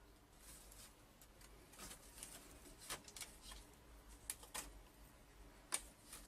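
Faint, scattered clicks and short scrapes, with a few sharper clicks in the second half.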